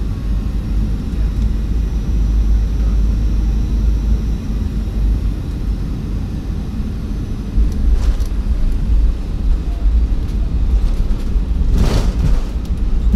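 Cabin noise inside an airliner rolling along the runway after landing: a loud steady low rumble from the wheels and engines, with a few brief clatters about eight and twelve seconds in.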